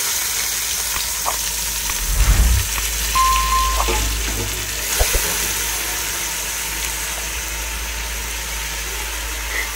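Washed, drained rice sizzling as it starts to fry in hot oil with onions in an aluminium pot: a steady sizzle, with a few sharp clicks of the steel ladle against the pot. A short beep sounds a little after three seconds in.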